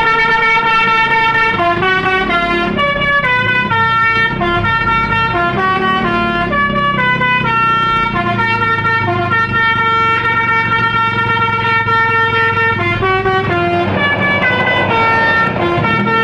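Indonesian bus 'telolet' horn, a Basuri multi-tone air horn set, played as a melody: a run of held horn notes stepping up and down in pitch every fraction of a second to about a second, over a low steady rumble.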